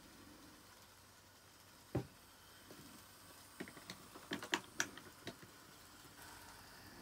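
Small clicks and taps over faint room noise: a single sharp click about two seconds in, then a quick run of light clicks over about a second and a half.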